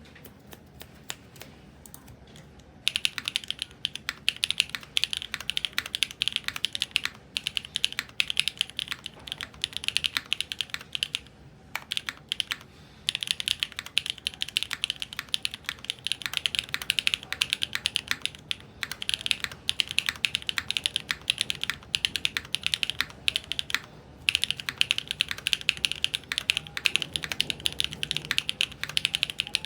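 Nightowl60 mechanical keyboard with Sarokeys BCPs being typed on quickly, in long runs of rapid keystrokes broken by a few brief pauses.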